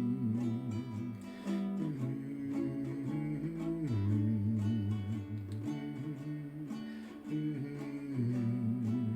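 Ukulele strummed steadily through the chords of a folk song in an instrumental break between verses, with the chords changing every second or two.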